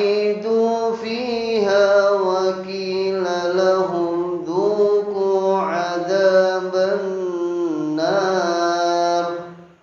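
A man reciting the Quran in Arabic, chanting one long unbroken melodic phrase with a wavering, ornamented pitch. It stops shortly before the end.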